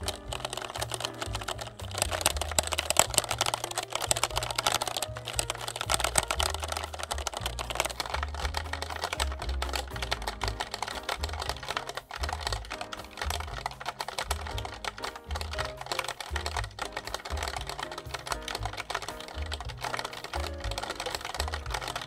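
Rapid typing on a GrabShell mechanical keyboard with ABS double-shot keycaps: a dense run of key clicks, over background music with a stepping bass line.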